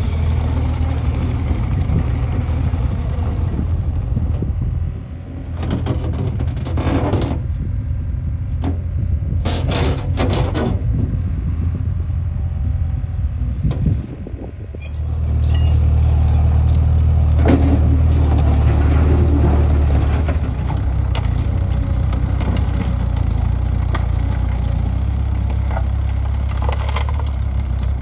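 Gehl CTL60 compact track loader's diesel engine running, with a steady low hum. It dips briefly twice and runs louder for a few seconds about halfway through, with bursts of clattering around a quarter and a third of the way in.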